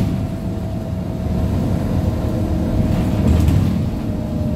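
Interior of a MAZ 103.485 city bus under way: a steady low rumble from the Mercedes-Benz diesel engine and road, with a thin steady whine from the slightly whining drive axle. There are a couple of light rattles, one about three seconds in.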